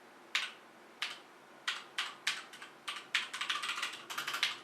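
Outemu-switch mechanical keyboard keys being pressed: single clicky keystrokes spaced about half a second apart, speeding up into a quick run of typing about three seconds in.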